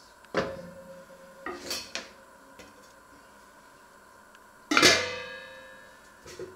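Stainless steel stockpot set down with a ringing knock, then scraped and knocked as it is settled. Its metal lid is then put on with a loud ringing clang a little before the end, followed by a couple of small clinks.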